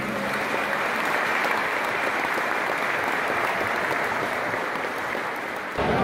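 Steady applause, many hands clapping, which breaks off abruptly near the end.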